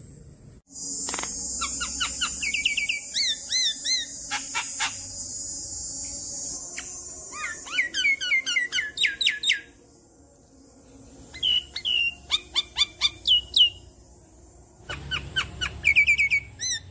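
Javan myna singing. It opens with a long harsh rasping screech laced with quick rising-and-falling whistled notes and a few sharp clicks, then gives runs of fast repeated chirps in bursts, with brief pauses between them.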